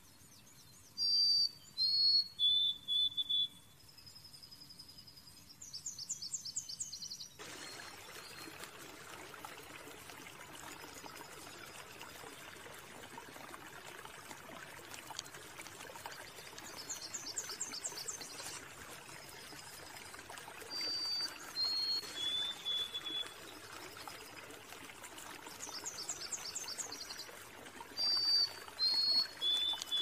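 A small songbird singing over and over: clear high whistled notes that step down in pitch, alternating with a fast high trill. From about seven seconds in, a steady hiss of running water sits under the song.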